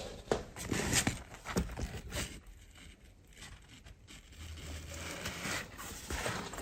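Faint handling noises: a few light scrapes and rustles, then a quiet spell, then a low faint hum with more light rustling near the end.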